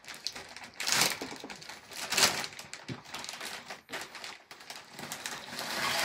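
Crinkly plastic Doritos chip bag rustling in several short bursts as it is tugged open, then tortilla chips sliding out into a glass dish near the end.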